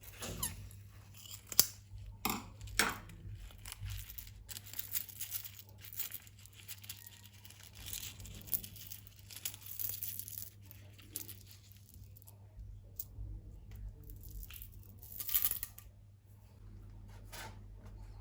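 Hands working slime-filled plastic bags: irregular crinkling, tearing and small sharp clicks, loudest a second or two in and again about 15 seconds in.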